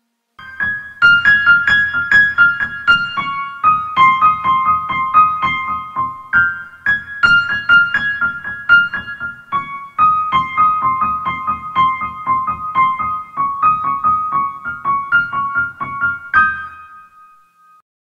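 Keyboard music, tagged as electric piano: a bright, quick melody of short repeated notes, about four a second, over lower chords. It stops about a second and a half before the end, with one last note ringing out.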